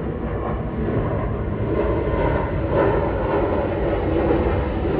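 Jet airliner engines of a departing plane climbing overhead: a steady rumble with a rushing hiss, growing slightly louder about two seconds in.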